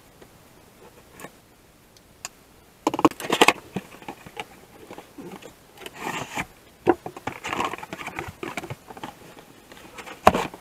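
Cardboard box and packaging of a headlight restoration kit being opened and unpacked by hand: irregular scraping and crackling of cardboard and paper in short bursts, starting about three seconds in, with a few sharp clicks near the end.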